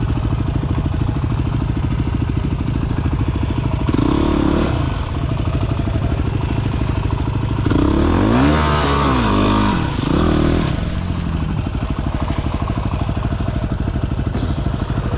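Dirt bike engine running under load on a trail, its revs rising and falling twice, briefly about four seconds in and again for a couple of seconds near the middle.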